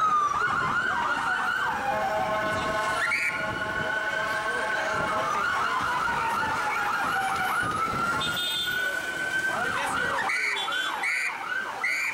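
Police pickup's electronic siren switching back and forth between a slow wail and a rapid yelp several times, ending on a fast yelp with short high beeps, over the rumble of traffic.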